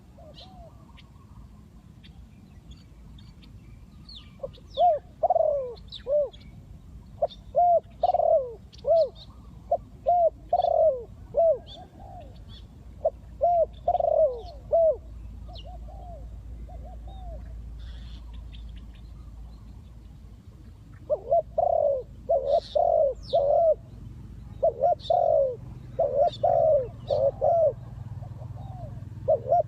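Spotted dove cooing: repeated phrases of low, arched coo notes in two long bouts, the first starting a few seconds in and the second from about two-thirds of the way through. Small birds chirp faintly and high-pitched throughout.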